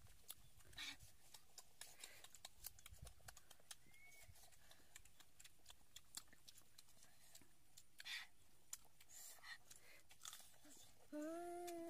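Faint eating sounds: soft clicks, crunches and lip smacks of people chewing food. Near the end, a long hummed "mmm" starts.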